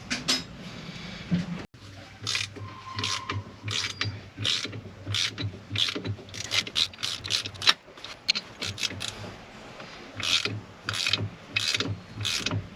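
Hand tool worked on metal in repeated rasping strokes, roughly one to two a second, starting about two seconds in, during work to free a stuck boat-engine drive coupling.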